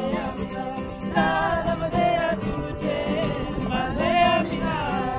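Song with a singing voice over guitar accompaniment.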